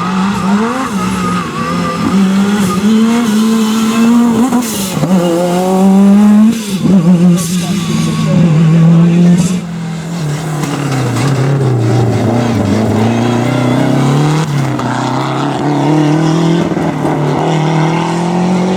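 Rally car engine revving hard and shifting up and down through the gears, its pitch repeatedly climbing and dropping. Several sharp cracks come in the loudest stretch, around the middle.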